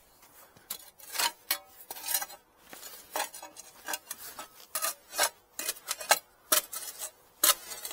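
A metal hand tool digging and scraping into soil and gravel in a small hole, in repeated short gritty strokes about two a second.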